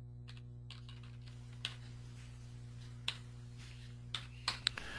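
Faint, irregular clicks of a computer keyboard, a handful spread unevenly through the stretch, over a steady low hum.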